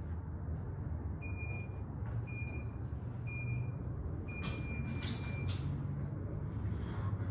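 Electronic gym timer counting down: three short beeps about a second apart, then one longer beep that signals the start of the workout. A steady low room hum runs underneath.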